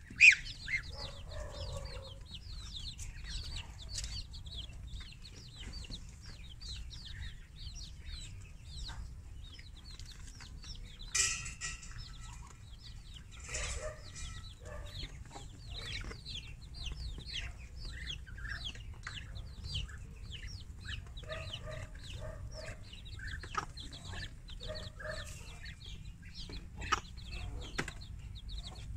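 Ten-day-old chicks peeping continually in quick, falling chirps, while a hen clucks low in short runs of three or four, once near the start and twice in the last third. One louder call cuts in about eleven seconds in.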